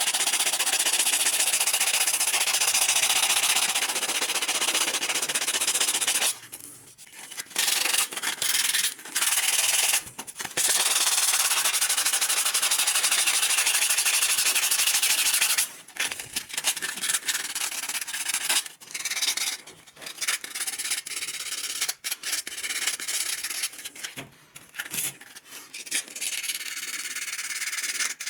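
Sanding during a carpet knife restoration: long stretches of loud, steady abrasive rasping, broken by a few short pauses. In the second half it turns to quieter, irregular scraping strokes.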